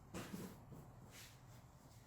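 Near silence: faint room tone with a couple of soft, brief rustles near the start, as a package is handled.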